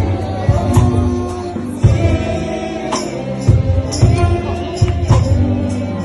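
Gospel worship music: a sung melody over a steady drum beat, with tambourine.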